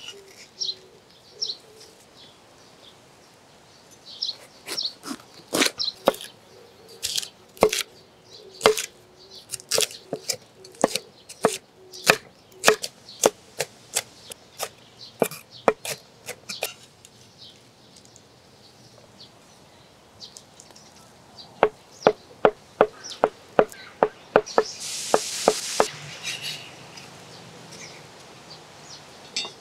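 Chef's knife chopping vegetables and Spam on a wooden cutting board, the blade knocking sharply on the wood. The chops are uneven at first, then come as a fast even run of about four or five a second near the end, with a brief rushing hiss among them.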